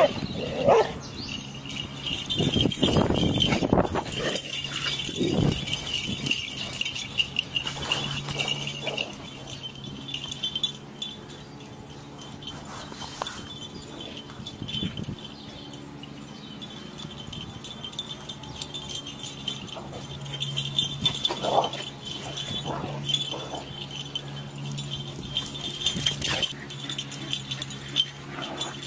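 An Australian Terrier and larger dogs play-fighting, with a few short barks and a steady high jingling.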